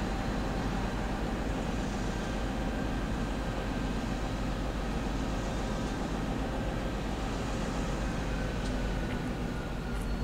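Diesel-electric locomotives hauling a loaded coal train, their engines running with a steady deep hum as the train comes closer.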